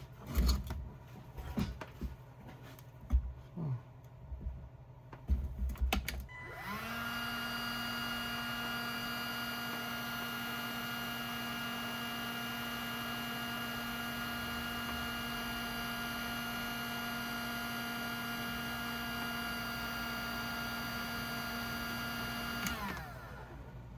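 Electric heat gun switched on about six seconds in, its fan motor spinning up to a steady whine and running for about sixteen seconds, then switched off and winding down, used to shrink heat-shrink tubing over a crimped wire connector. Before it starts, a few handling clicks and knocks.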